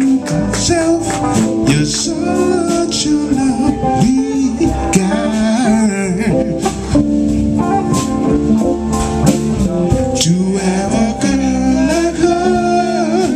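Live band playing: a man singing over electric guitar, bass guitar and drums.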